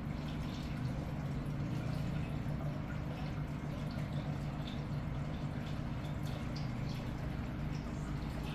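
Aquarium water return trickling and bubbling into the tank from a PVC outlet pipe, with scattered small drip-like pops over a steady low hum.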